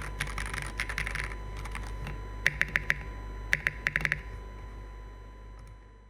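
Crystalis80 mechanical keyboard with a stainless steel plate, sandwich leaf-spring mount, and Durock POM switches being typed on, keystrokes clacking. A quick run of keystrokes comes first, then two short groups of louder clacks in the middle, over a faint steady hum, before the sound fades out near the end.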